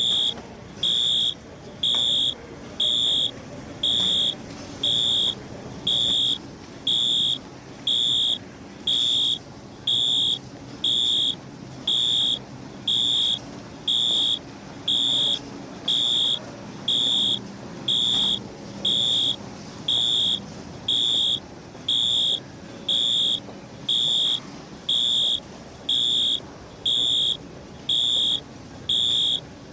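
Fire alarm sounder beeping: a single high-pitched electronic tone pulsing on and off about once a second, each beep about half a second long, over faint low background noise.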